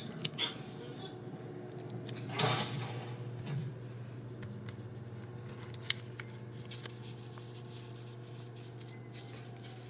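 Construction paper being handled and folded by hand: a short rustle about two and a half seconds in and scattered small clicks and crinkles, over a steady low hum.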